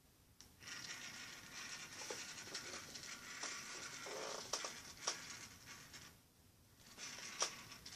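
A handmade Gauge 1 model locomotive runs slowly on low batteries: its mini DC motor and nylon gears give a thin, steady whirr, with a few light clicks. The whirr stops for about a second about two-thirds of the way through, then starts again with a click.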